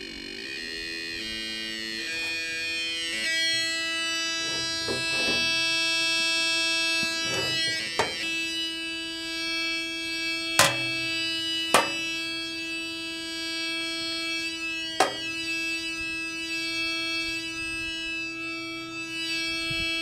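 A kit-built transistor sound-effects generator, a light-controlled oscillator, sounding through its small speaker inside a metal tin. Its buzzy tone wavers and glides in pitch for the first few seconds, then holds one steady pitch. Several sharp metallic knocks sound as the tin's lid is handled.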